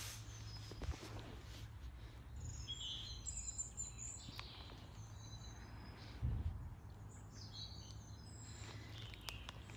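Small birds chirping in short bursts in two clusters, over a steady low hum, with a brief low thump about six seconds in.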